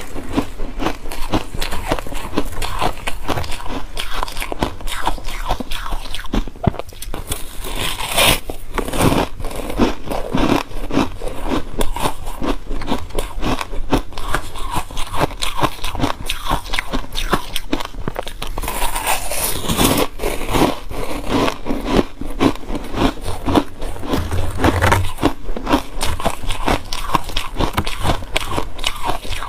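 Close-miked crunching and chewing of soft, packed freezer-frost ice, a dense steady stream of crackly crunches.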